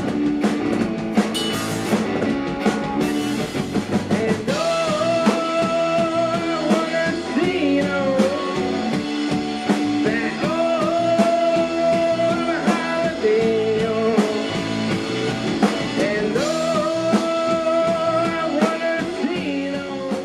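Rock music: a band with drum kit and guitar, a singer holding long notes in three phrases starting about four, ten and sixteen seconds in.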